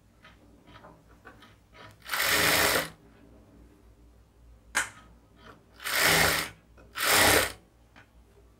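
Jack industrial sewing machine stitching in three short runs of under a second each, stitching a sleeve onto a dress. A sharp click comes between the first and second runs, with faint clicks from handling in the gaps.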